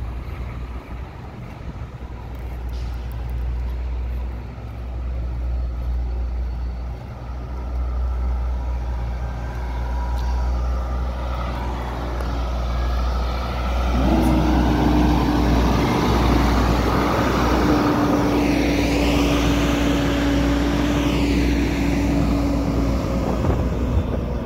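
Volvo semi-truck tractor hauling a refrigerated trailer, its diesel engine running as it drives slowly past and turns, with wind rumbling on the microphone. Its engine gets much louder about halfway through and holds a steady drone for several seconds.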